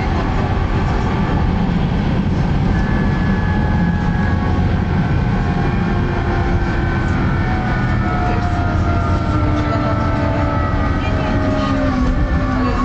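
Puma 118N tram running, heard from inside: a steady low rumble of wheels on rails, with a motor whine that slides down in pitch from about three seconds in as the tram slows.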